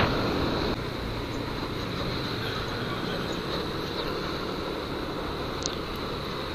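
Yamaha NMAX scooter riding at low speed in traffic: steady wind and road noise over the low drone of its engine, a little quieter from about a second in.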